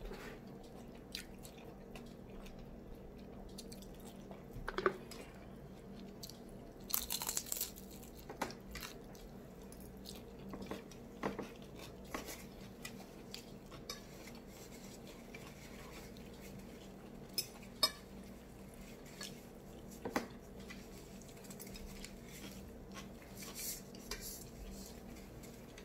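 Eating an egg roll: quiet chewing and crunching, with a dozen or so scattered clicks and knocks of dishware, busiest about seven to eight seconds in, over a faint steady hum.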